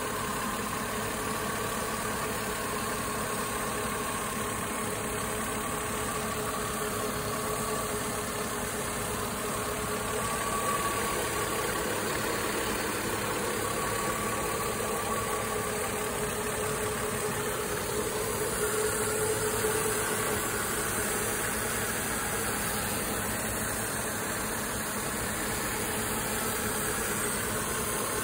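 Mercedes-Benz W124's twin-cam straight-six with K-Jetronic fuel injection idling steadily, heard close up under the open bonnet, swelling slightly in level a couple of times.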